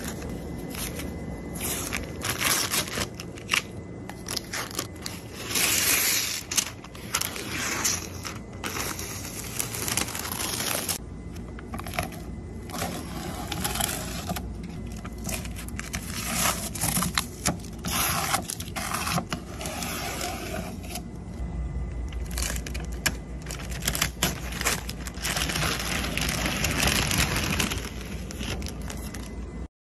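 Masking tape and masking paper being peeled off freshly painted car bodywork, crinkling and rustling in irregular bursts. A steady low hum joins about two-thirds of the way in.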